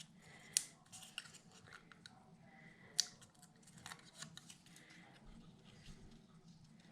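Small clicks, snips and paper rustles from handling scrapbook paper pieces and adhesive, with two sharper clicks about half a second and three seconds in.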